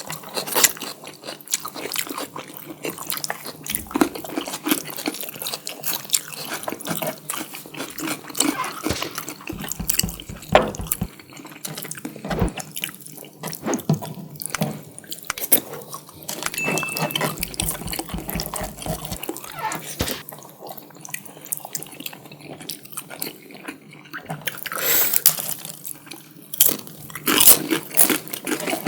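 Close-miked, wet eating sounds: chewing and smacking of curry-soaked chicken and biryani rice, a dense, irregular run of wet clicks and squelches.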